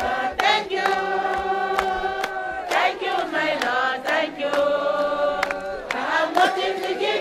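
A crowd singing together in a chorus, clapping their hands on the beat about twice a second.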